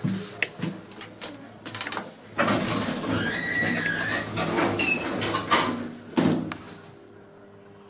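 Sliding doors of an old lift modernised by Kone operating: clicks, then a few seconds of rumbling door travel with a gliding whine, ending in a knock about six seconds in. A steady low hum follows.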